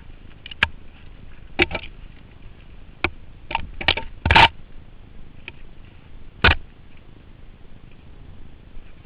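Mountain bike jolting down a rough, rocky trail: about seven sharp, irregular knocks and rattles of the bike and rider taking the bumps, the loudest about halfway through, over steady background noise. Heard through a helmet-mounted GoPro in its housing.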